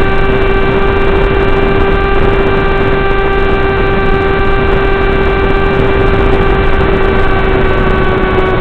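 Electric motor and propeller of an FPV model aircraft whining at a steady pitch under constant throttle, heard through the onboard camera's microphone with steady rushing noise underneath.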